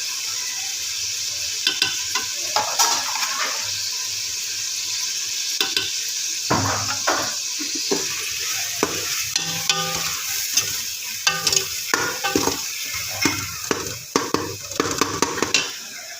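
Bhindi (okra) sizzling as it fries in oil in a pan, with a spoon scraping and clinking against the pan as it is stirred. The hiss is steady and the clinks come irregularly, more often from about six seconds in.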